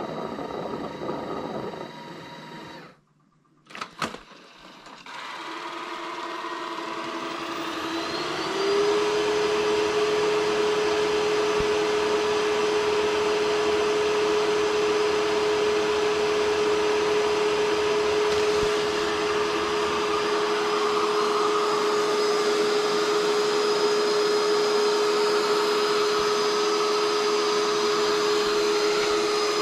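Ecovacs Deebot T20e robot vacuum's suction motor spinning up, its whine rising in pitch over a few seconds before settling into a steady running hum.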